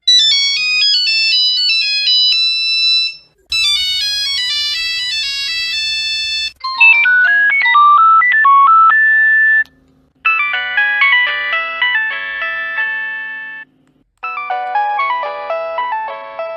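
Nokia mobile phone ringtones playing one after another: five short electronic melodies separated by brief pauses. The first two are high-pitched beeping tunes; the later ones are lower, with several notes at once.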